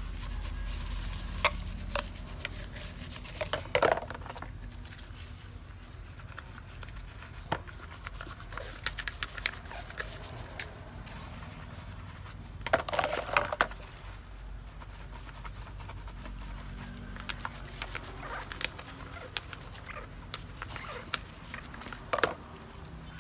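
Intermittent handling noises from baby bottles being washed by hand: scattered light clicks and a few short scrubbing or rustling bursts, the loudest about 4 s in and around 13 s, over a low steady hum.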